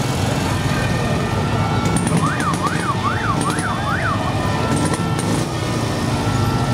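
A column of motorcycles riding slowly past, many engines running together. About two seconds in, a siren wails in quick up-and-down sweeps, about five of them, for some two seconds.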